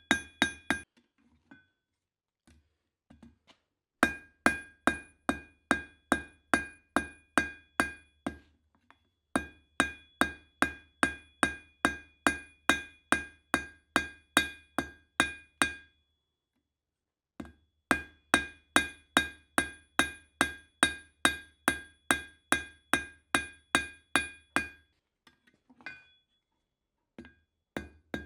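Hand hammer striking steel on an anvil while forging a knife, at about two ringing blows a second. The strikes come in four runs with short pauses between them.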